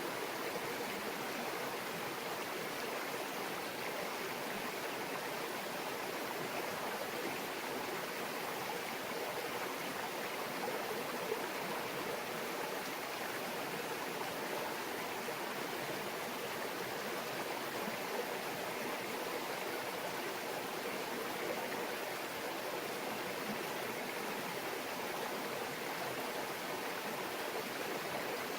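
Small mountain stream babbling over rocks, a steady, even rush of water.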